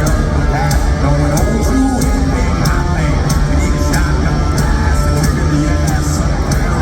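Hard rock band playing live in an arena, loud: distorted electric guitars, bass and drums, with cymbal hits about three times a second.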